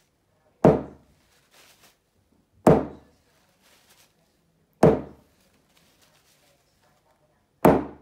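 Claw hammer striking wet acrylic paint puddles on a flat board, four loud thuds about two seconds apart, each dying away quickly: the hammer-smash fluid-art technique, splattering the paint.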